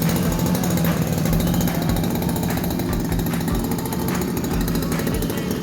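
STIHL FR 3001 backpack brushcutter's two-stroke engine running at a steady speed, with a rapid, even buzz.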